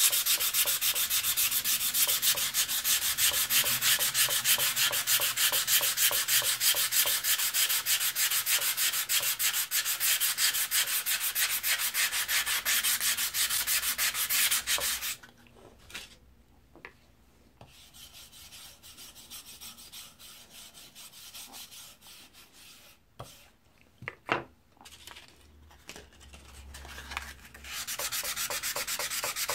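Hand sanding with 100-grit sandpaper on an old drawknife's steel blade: rapid back-and-forth scratching strokes that stop about halfway. After a quieter stretch with a few light knocks, the sanding starts again near the end.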